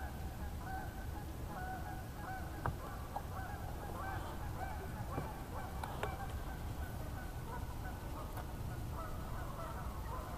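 Birds calling over and over in short, flat-pitched notes, over a steady low rumble.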